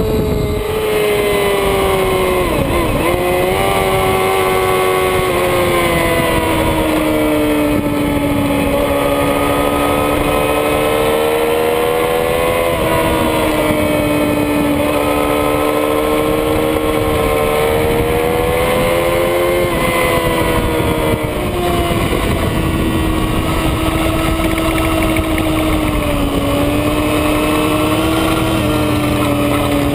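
A 2007 Yamaha R6's inline-four engine running at high revs, heard onboard at speed. The pitch rises and falls with throttle and gear changes, with a sharp dip about three seconds in, over steady wind rush.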